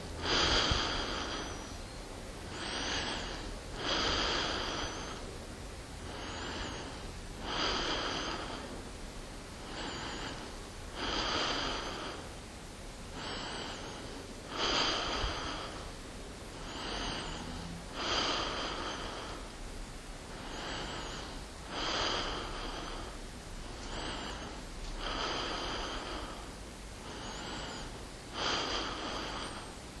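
A person breathing steadily and audibly, close up: a rush of air swells and fades in a regular rhythm, one stronger and one weaker breath sound in each cycle of about three and a half seconds.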